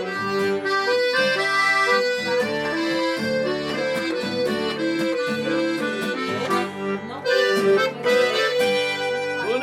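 Accordion playing the instrumental closing phrase of a sertanejo song: a melody of held, stepping notes over a steady rhythmic accompaniment.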